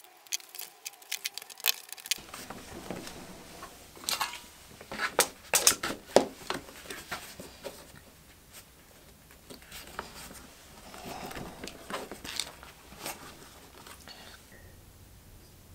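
Hands handling a leather sheath and small tools on a cutting mat: irregular clicks, taps and light rustling of the leather, busiest about four to six seconds in.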